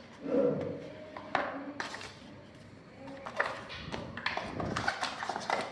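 Hands handling a parcel and its packaging: scattered taps, clicks and rustles, busier in the second half, with a brief low pitched sound just after the start.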